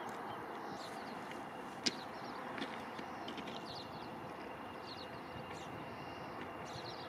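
Outdoor ambience: a steady background hiss with faint, short bird chirps scattered through it and one sharp click about two seconds in.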